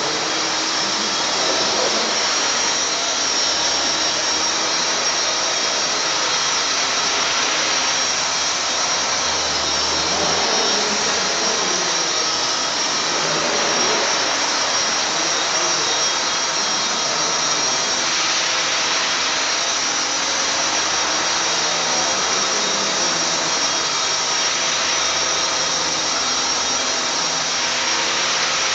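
Battery-electric Blade SR RC helicopter in flight: a steady, high motor and gear whine over the rush of its spinning wooden rotor blades, holding level throughout.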